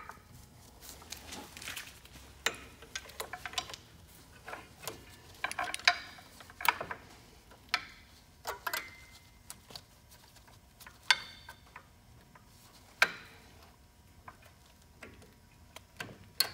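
Hand tool scraping and clicking against an Eaton drum-brake shoe's return spring and pin as the spring is pried and hooked into place, with irregular small metal clicks and a few sharper clinks that ring briefly.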